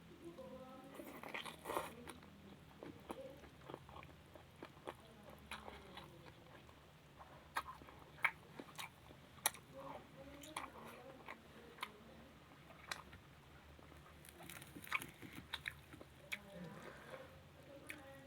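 Close-miked eating sounds of a person biting and chewing a meal of vegetables, with irregular sharp crunchy clicks and wet mouth noises.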